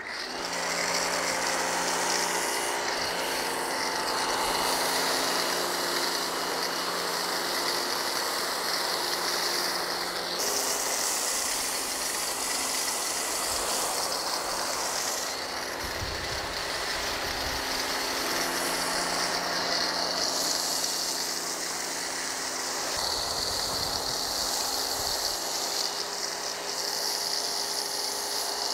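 Pressure washer running, its motor and pump humming steadily under the hiss of a foam cannon spraying thick foam. The spray's hiss shifts in strength a few times.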